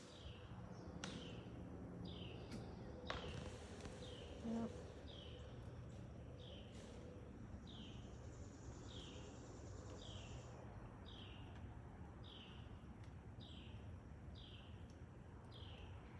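An unseen animal calling repeatedly: short, high-pitched calls, each sliding downward, in a steady series of a little more than one a second.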